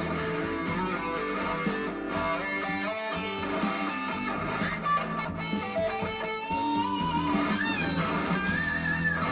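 Electric guitar lead playing over a slow rock backing track with bass and drums. In the second half it plays long held notes with wavering vibrato and upward string bends.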